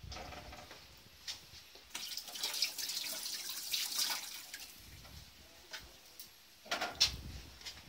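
Kitchen tap running and splashing in a steel sink as a wax piece is rinsed under it, loudest from about two seconds in until past the middle. It is broken by scattered drips and splashes, with a sharper splash near the end.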